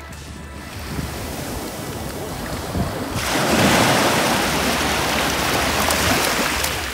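Small waves breaking and washing up on the shore. The surf gets suddenly louder a little over three seconds in as a wave breaks close by, over a low wind rumble on the microphone.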